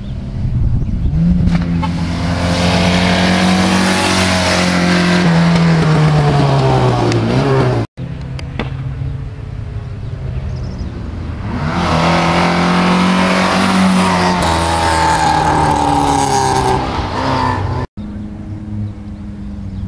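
Two rally cars going by at speed, one after the other, their engines running hard at high revs. In each pass the engine note falls in pitch as the car goes by, and each pass is cut off abruptly.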